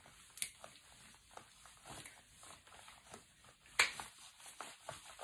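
Scattered rustling and soft clicks of someone moving about and handling things, with a sharp click about half a second in and a louder one near four seconds.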